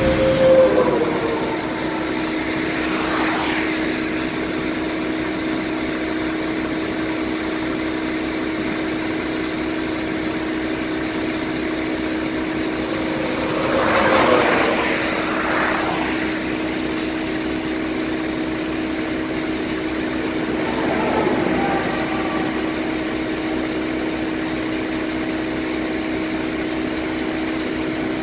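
Street sweeper truck's engine running with a steady hum. A few passing vehicles swell up and fade away, at the start and about 14 and 21 seconds in.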